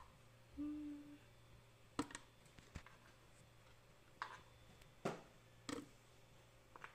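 Banana chunks dropped one at a time into a plastic blender jar: about five soft, separate taps and thuds, with a brief low hum about half a second in.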